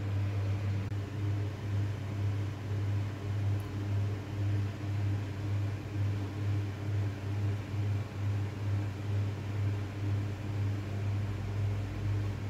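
Steady low machine hum that pulses about twice a second, with a light hiss over it.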